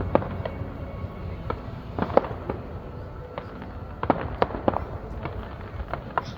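Fireworks going off: an irregular run of sharp bangs and pops over a steady low rumble, the loudest about two seconds in and again around four seconds in.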